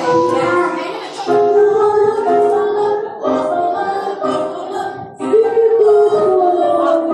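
Group of young children singing a song together with musical accompaniment, in phrases of held notes.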